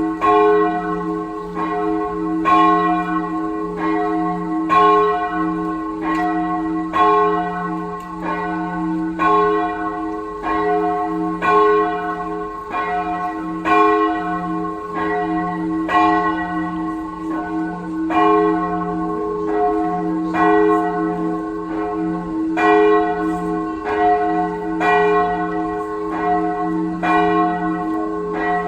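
A peal of several church bells ringing together, their strokes following one another about once a second and overlapping over a steady low hum.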